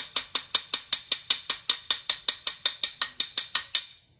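Small hammer tapping a steel pin into the action of a Boito Miura 1 shotgun: quick, even metallic taps, about five or six a second, driving the pin through and pushing the slave pin punch out the other side. The tapping stops shortly before the end.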